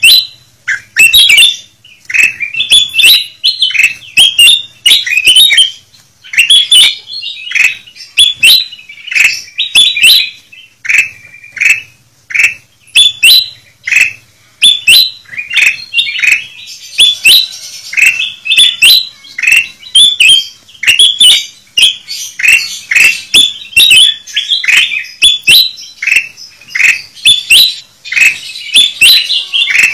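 Kutilang emas (ruby-throated bulbuls) calling noisily: a rapid, unbroken string of short, loud chirping calls that overlap one another. This is a lure recording (suara pikat), played to draw wild kutilang emas to a trap.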